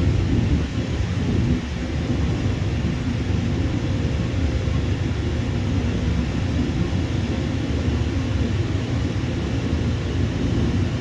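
Jet airliner engines running, a steady low rumble.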